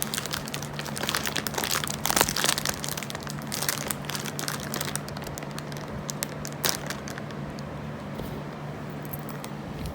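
Plastic packaging of Luden's cherry cough drops crinkling as it is torn open and handled. The crinkling is dense for the first five seconds or so, then thins out, with one sharp crackle about seven seconds in.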